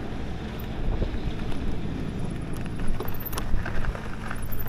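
Wind buffeting the microphone over the rumble of e-mountain-bike tyres rolling along a track, with a few light clicks and one sharp knock a little over three seconds in.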